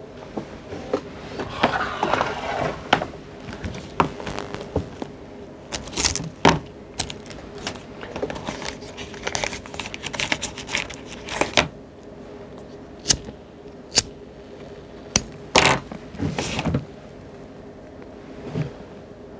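Computer keyboard and mouse clicks, some single and some in short quick runs, over a steady low electrical hum.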